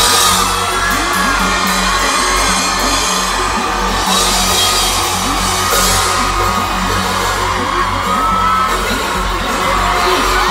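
Live band music in a large arena, loud and steady with a low sustained drone and no clear beat, while the crowd yells and whoops over it.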